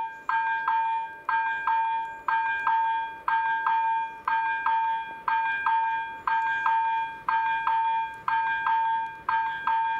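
Railroad level crossing's warning bell ringing in a steady repeating pattern, a quick pair of strikes about once a second, each ring decaying. It is the crossing's warning that a train is approaching.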